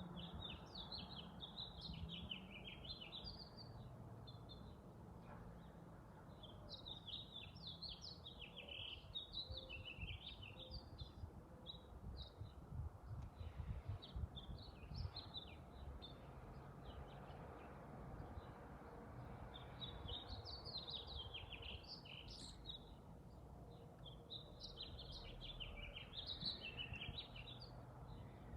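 A songbird singing in about five long phrases of quick, jumbled high notes, each lasting a few seconds with short pauses between, over a faint low background rumble.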